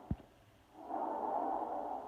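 Normal tracheal breath sound as heard on auscultation: intense, blowing breath noise. One breath phase ends at the start, and after a short pause the next phase comes in under a second in and runs for about a second and a half. A brief low thump sounds just after the start.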